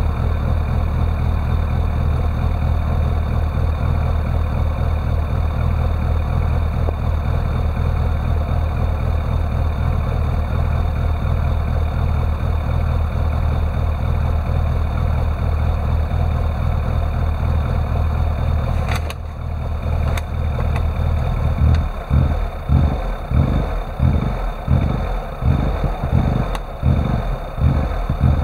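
Fuel-injected Rover Mini's A-series engine idling steadily, then, after a click about two-thirds of the way in, surging and stumbling in pulses about twice a second with the throttle opened, the revs failing to climb. The sign of an engine fault: unstable idle and no pick-up when the accelerator is pressed.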